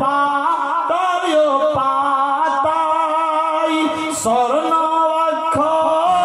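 A man singing a gojol, a Bengali Islamic devotional song, solo, holding long notes and gliding between them.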